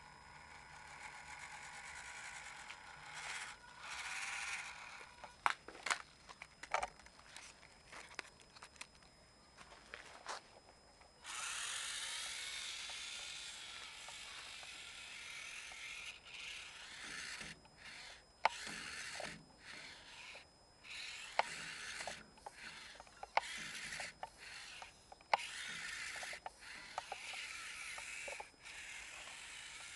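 Losi micro rock crawler's small electric motor and gearbox whining as the little truck drives, coming and going in stop-start bursts with a wavering pitch and sharp clicks in between; the whine runs faint at first and gets louder about a third of the way in.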